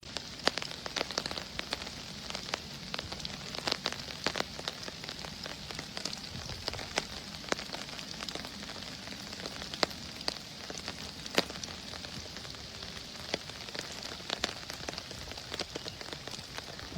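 Rain falling steadily, with individual drops ticking at irregular moments against a steady hiss.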